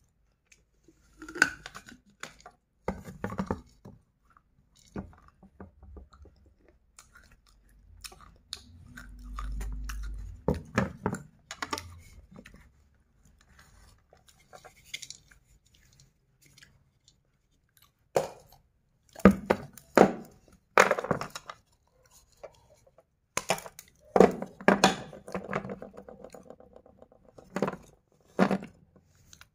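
Close-miked crunching and chewing of pieces of a red clay pot, in irregular clusters of sharp crunches with short pauses between bites.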